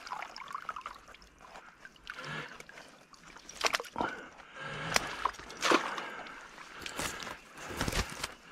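Water sloshing and splashing at a pond's edge, with scattered knocks and rustling, as a dead raccoon in a trap is pulled out of the shallows and dragged up a bank of wet pine needles.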